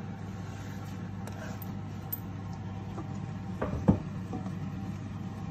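Steady low hum of kitchen background noise, with a few short knocks close together about three and a half to four seconds in.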